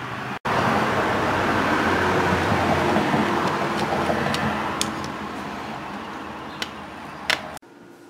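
A car passing on the street: a wash of road noise that swells over the first couple of seconds and then slowly fades. A few light clicks come near the end.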